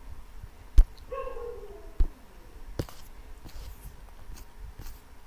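Computer mouse clicking: a sharp click about a second in, further clicks at about two seconds and just under three, then a few fainter ticks. Just after the first click comes a short, slightly falling whine.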